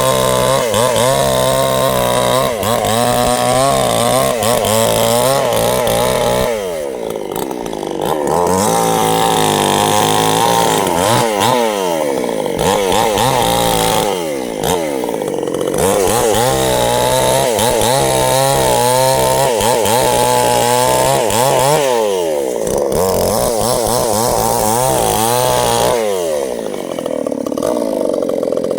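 Two-stroke chainsaw running at high revs while cutting sengon wood, its pitch wavering under load. Four times the engine drops back off the throttle for a moment, then revs up again.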